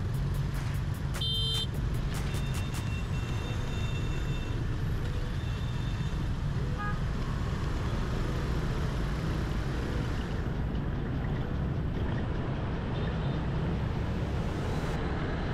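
Steady traffic and road rumble heard from a motor scooter riding through city streets, with a short high beep about a second and a half in.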